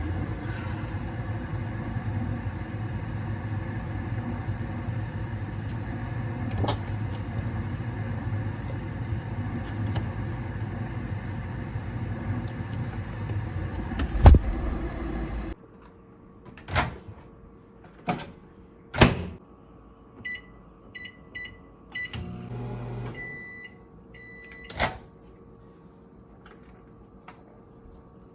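Microwave oven running with a steady hum that cuts off abruptly about halfway through. Then come knocks and clunks and a run of short electronic beeps.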